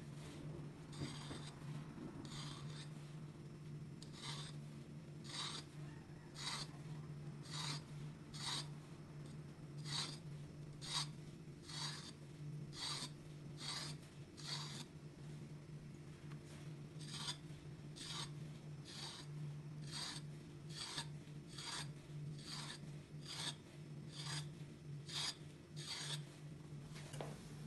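Fork tines scraping lengthwise down the skin of a raw zucchini to score it: a short rasp about once a second, stroke after stroke, with a pause about fifteen seconds in.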